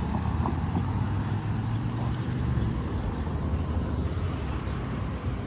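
Road traffic passing through an intersection: a steady low rumble of cars. Faint ticks about once a second sound over it, the pace of a crosswalk push button's locator tone.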